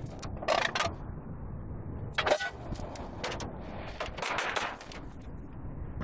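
Sharp clicks and knocks from hands handling a package air conditioner's sheet-metal disconnect box and cut copper lines. The knocks come about half a second in, a little past two seconds, around three seconds and around four seconds, over a low, steady rumble.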